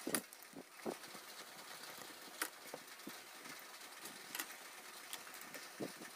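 Small metal parts being handled: about five light clicks and knocks, the loudest right at the start, over a faint steady hiss.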